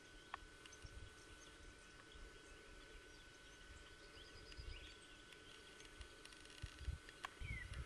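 Faint birds chirping over a quiet rural background hiss with a faint steady high tone, a few short whistled calls sliding in pitch, and some low bumps near the end.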